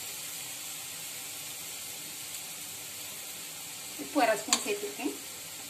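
Grated mango and carrot frying in oil in a steel kadai, a steady high sizzling hiss.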